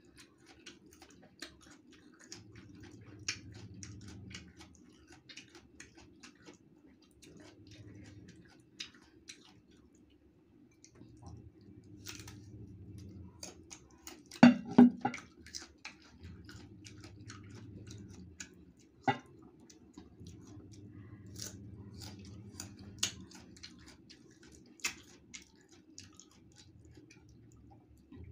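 Close-up chewing and crunching of green mango slices, with wet mouth clicks and smacks. About halfway through a few loud knocks stand out, with another sharp knock a few seconds later, over a steady low hum.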